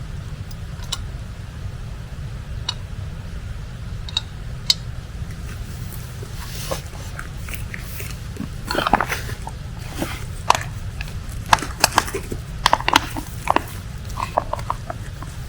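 Clicks, taps and rustles of camping cooking gear being handled, busiest in the second half, over a steady low rumble.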